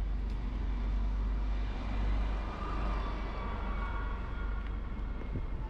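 Road vehicle noise: a steady low engine and road rumble, with a faint steady whine through the middle.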